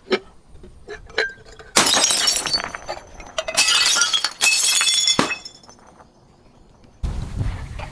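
Glass bottle breaking: two light clinks, then three long stretches of shattering and crunching glass. A different low noise starts suddenly near the end.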